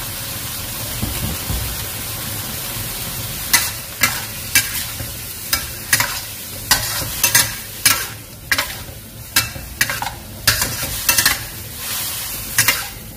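Squid and celery sizzling in a hot stainless steel wok. From about three and a half seconds in, a metal spatula scrapes and tosses them against the wok about twice a second.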